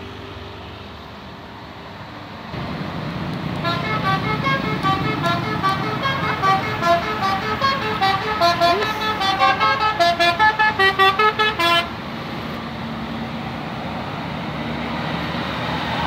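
Tour bus's Basuri telolet multi-tone horn playing a quick stepping melody for about eight seconds, stopping abruptly, over the rumble of the bus's engine and tyres as it passes close by.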